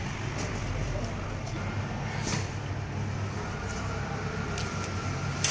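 Steady low background hum and noise, with a few faint knocks as a large tuna is handled on the cutting board.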